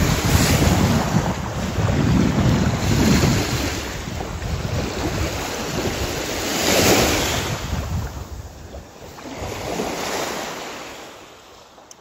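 Small waves washing up onto a sandy beach, the surf rising and falling in repeated washes, one stronger wash about seven seconds in. The sound fades out near the end.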